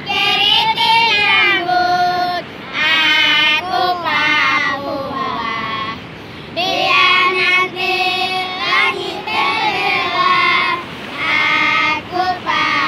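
A group of young girls singing together without accompaniment, in phrases broken by short pauses.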